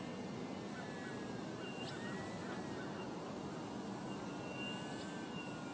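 Electric motor and propeller of a Carbon-Z T-28 model plane running at low throttle as it taxis: a faint whine that drifts slowly up and down in pitch over a steady hiss, with a constant high thin buzz throughout.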